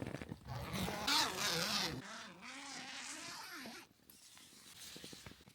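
A zip being pulled, with fabric rustling around it; the loudest rasp comes about one to two seconds in, followed by fainter rustling and a few small clicks.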